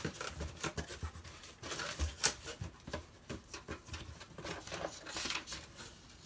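Cardboard box flaps and paper being handled by hand: irregular rustling, scraping and light knocks as a shipping box is opened and its contents lifted out.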